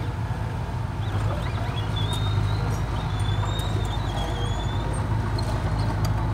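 Nissan Diesel dump truck's diesel engine running steadily at low revs as the loaded truck manoeuvres, with a thin wavering high squeal in the middle.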